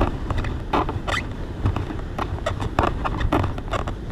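Irregular light clicks and taps, several a second, over a steady low rumble of wind.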